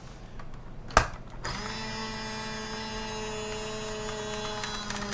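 Electric countertop jar opener: a click about a second in, then its motor runs with a steady whirring hum as it grips and twists the lid of a pickle jar.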